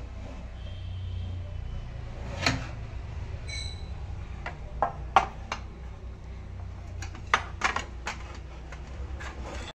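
Metal grill tray being pulled out of an OTG oven and handled: scattered metal-on-metal clicks and knocks, the loudest about two and a half seconds in, with a short metallic ring a second later. A low steady hum runs underneath.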